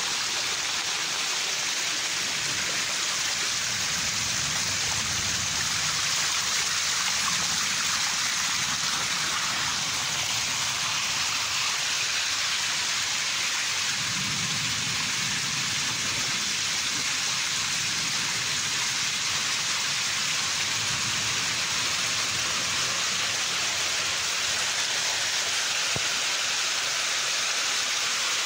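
Heavy thunderstorm rain pouring down steadily, with runoff cascading and splashing down brick steps.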